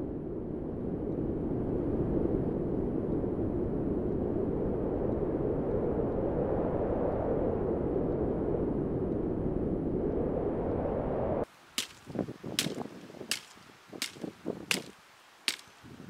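Steady wind rumbling across the microphone on an exposed hilltop. About eleven seconds in it cuts to a hand axe chopping dry dead branches: about six sharp strikes, roughly one every 0.7 seconds.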